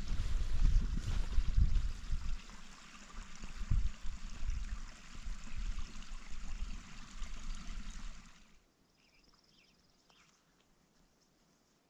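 Wind buffeting the microphone in gusts over a steady rushing hiss. About eight and a half seconds in it cuts off to near quiet, with a few faint bird chirps.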